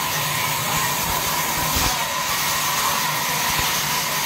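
Large sawmill band saw running steadily, its blade cutting a board of jackfruit wood: a constant hiss with a steady high whine over a low hum.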